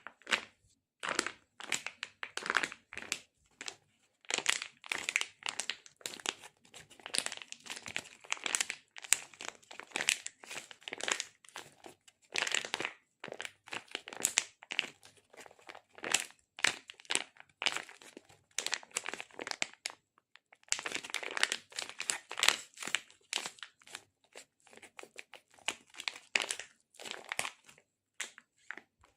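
ASMR sticky sounds: a tacky surface pulled apart again and again, each pull a short burst of crackling, with brief pauses about 4 and 20 seconds in.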